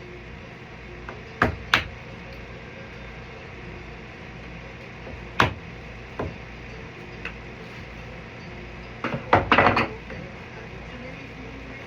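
A few sharp knocks and clunks over a steady low hum: two close together about a second and a half in, another past the middle, and a quick cluster of several near the end.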